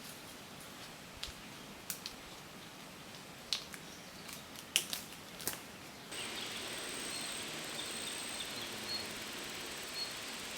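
Quiet countryside ambience with a few short sharp ticks and chirps in the first half; about six seconds in, a steady high-pitched tone comes in with soft bird-like chirps under it.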